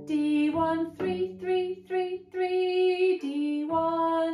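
A woman singing a short melody unaccompanied, in a string of short separate notes that stay close to one pitch, with a longer held note near the end.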